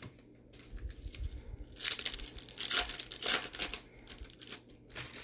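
A trading-card pack wrapper being torn open and crinkled as the cards are pulled out. It comes in a run of short rustling bursts starting about two seconds in.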